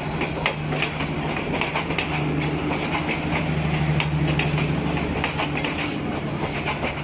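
Passenger coaches of a Bangladesh Railway commuter train running past, their wheels clicking over the rail joints over a steady low hum.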